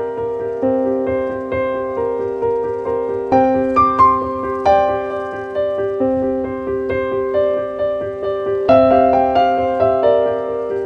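Background piano music: a slow, gentle melody of struck notes with sustained chords.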